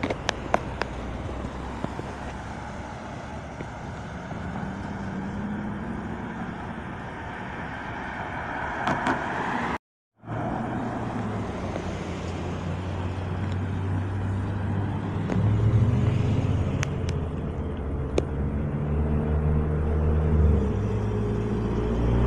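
Street traffic: car engines and tyres on the road, with a low engine rumble growing louder through the second half. A few clicks near the start, and the sound cuts out completely for a moment about ten seconds in.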